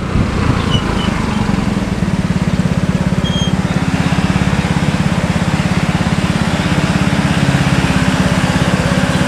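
Diesel bus engine running steadily through a 'knalpot ngorok' (snoring) exhaust, giving a deep, even, rapid throb.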